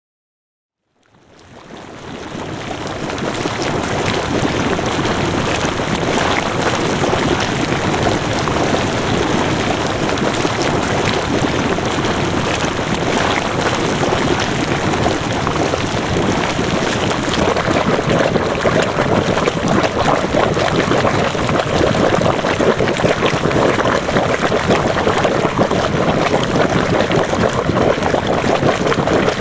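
Water of a volcanic thermal spring flowing and splashing in a dense, steady rush with fine crackling detail, fading in over the first couple of seconds.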